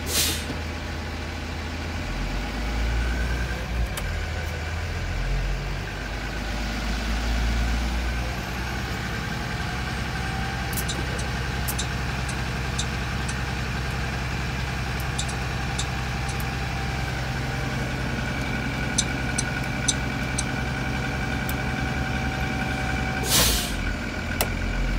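2020 Blue Bird Vision school bus engine running with its engine cooling fan going, a steady drone and whir. Scattered sharp clicks come midway, and a short burst of hiss comes near the end.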